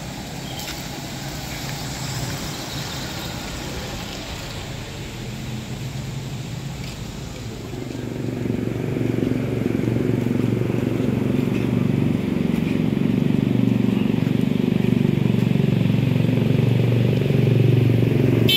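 A motor vehicle engine running close by, a steady low hum that grows louder about halfway through.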